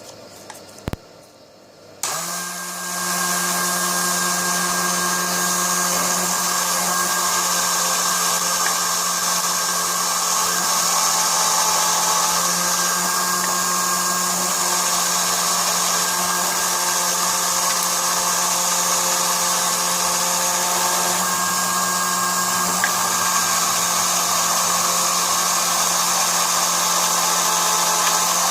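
Drill-motor mini lathe starts about two seconds in and runs at a constant speed, a steady motor whine with a low hum.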